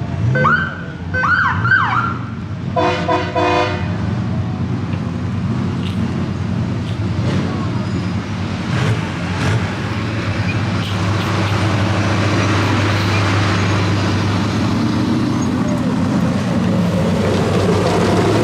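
Race vehicles rolling slowly past a roadside crowd. A few quick siren-like whoops rise and fall in the first two seconds, and a horn honks in a run of short beeps about three seconds in. Then comes a steady low engine hum.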